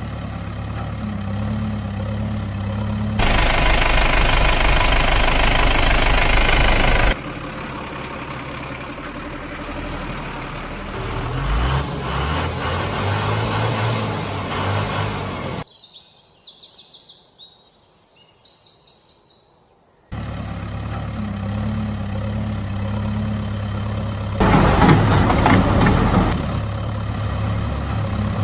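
Vehicle engine sounds, idling and running. The sound changes abruptly every few seconds, between a steady idle and louder running, with some rising revs. There is a much quieter break of about four seconds past the middle.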